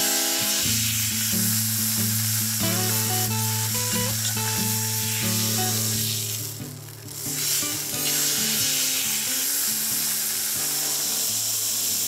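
Beef steak sizzling as it sears on a hot round metal griddle plate over a wood fire, a steady hiss that dips briefly about seven seconds in.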